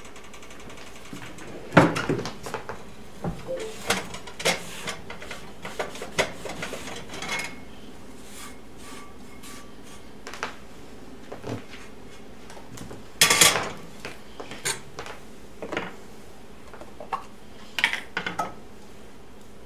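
Cast-iron skillet being handled on the stove and wiped out with a cloth: scattered knocks, clinks and rubbing, the loudest clunks about two seconds in and again around thirteen seconds.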